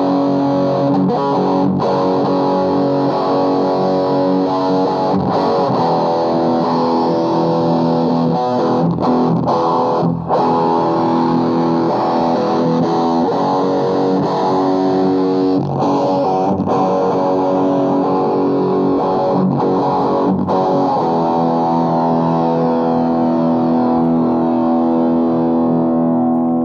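Heavily distorted electric guitar, a Schecter Omen Extreme played through a Blackstar HT Club 50 valve amp into a 2x12 cabinet loaded with Celestion Vintage 30 speakers: chords and riffs, ending on a long held chord that cuts off suddenly at the end.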